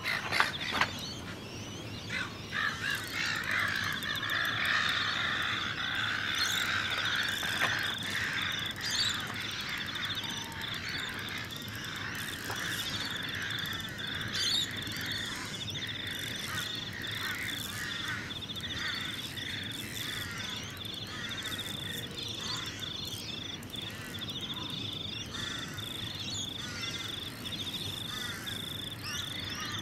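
A waterside evening chorus of frogs and insects. A steady high trill starts about four seconds in, with shorter calls repeating about once a second below it and a few faint clicks at the start.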